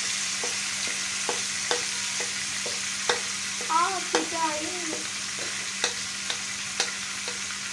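Marinated chicken pieces sizzling in hot oil in a pot, a steady frying hiss, with a dozen or so sharp clicks of a spoon scraping and tapping marinade out of a bowl into the pot. A brief voice sound about halfway through.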